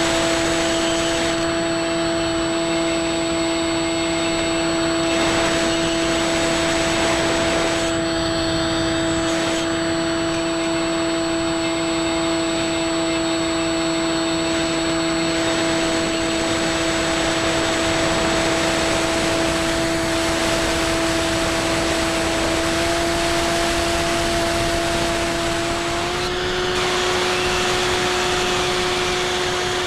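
Stock brushless motor and pusher propeller of a Bixler 2 RC plane, recorded onboard in flight: a steady electric whine over the rush of air. Near the end its pitch steps up slightly twice.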